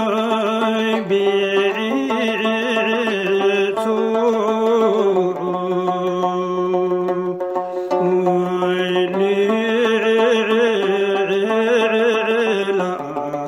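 Zhungdra, Bhutanese traditional song: a voice holds long, wavering notes, moving to a new pitch every few seconds, over instrumental accompaniment.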